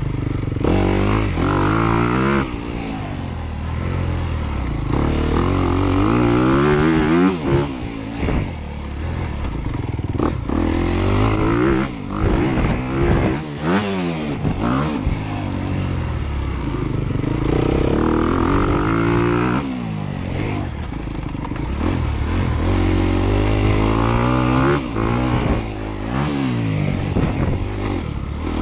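Dirt bike engines on a motocross track, revving up and falling back again and again as the throttle is opened and closed, the pitch rising and dropping every few seconds.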